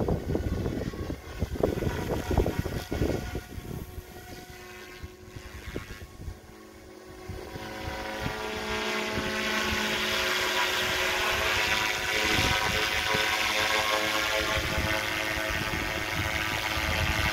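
Electric SAB Goblin 380 radio-controlled helicopter flying: a steady whine of motor and rotor blades, faint at first, that grows clearly louder from about halfway through as the helicopter comes nearer. Wind buffets the microphone in the first few seconds.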